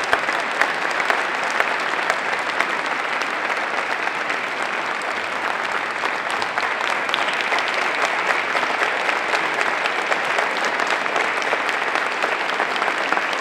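Sustained applause from a large seated-then-standing audience of legislators, many hands clapping in a dense, steady wash that goes on throughout as a standing ovation.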